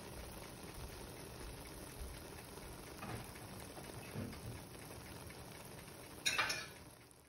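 Scrambled egg, tomato and onion mixture sizzling steadily in a wok, with a couple of faint knocks and a short louder noise about six seconds in.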